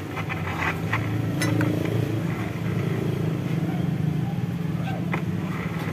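Yamaha Mio M3 scooter's single-cylinder engine running steadily with the CVT cover off, turning the belt, clutch and rear wheel. A rough noise from the final-drive gearbox remains; the owner puts it down to worn reduction gears, since only the bearing was replaced.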